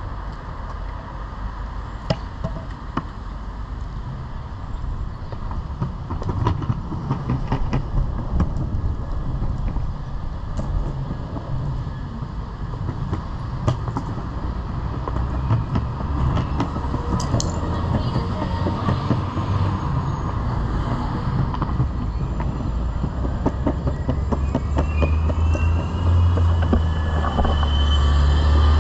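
Pantheon Trip longboard's wheels rolling over pavement: a steady low rumble with scattered sharp clicks, growing louder toward the end. A rising whine comes in near the end.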